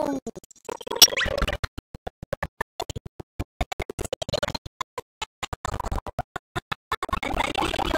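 Cartoon soundtrack music and sound effects: a falling whistle-like glide at the start and a quick rising glide about a second in, then choppy, stuttering sound cut up by many brief gaps, filling out again near the end.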